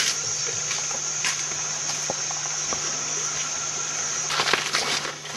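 Steady high-pitched insect drone from the forest that cuts off suddenly about four seconds in. Short rustling and brushing sounds follow near the end.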